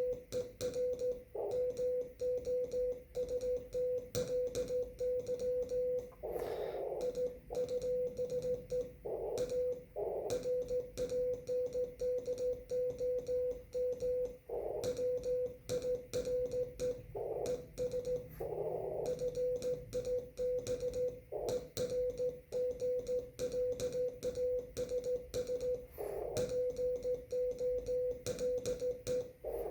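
Morse code (CW) on a ham radio transceiver: a single steady tone keyed continuously in dots and dashes, with sharp clicks along with the keying.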